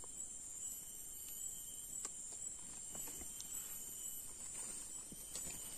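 Faint, steady high-pitched insect chorus of the forest, with a few soft clicks scattered through it.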